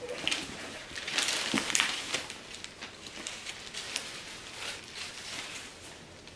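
Tissue paper and packaging rustling and crinkling as a blanket-wrapped bundle is pulled out of a cardboard box, busiest a second or two in, then dying away.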